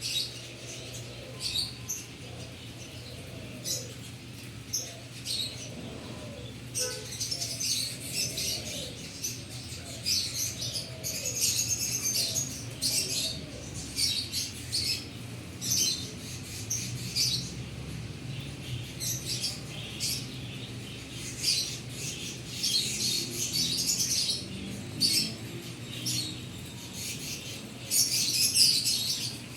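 Canaries chirping and twittering in short, scattered calls, busier in the second half, with quick wing flutters among them, over a steady low hum.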